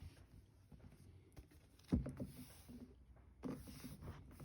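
Quiet handling noise as a leather-like cover is worked over a console lid: light rustling, with two soft knocks about a second and a half apart.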